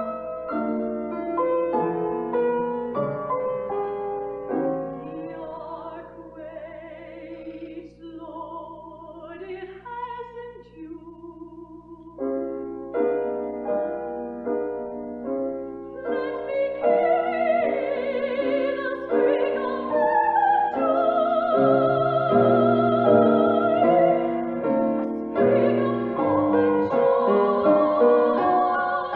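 A classical female voice singing an art song in operatic style, long notes held with vibrato, over piano accompaniment. It grows quieter in the middle, then swells again and is loudest near the end.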